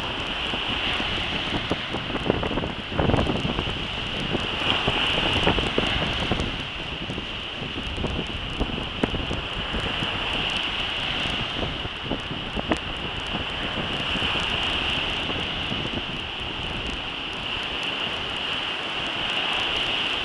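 Wind buffeting the microphone over the wash of breaking surf, with a steady high-pitched hiss.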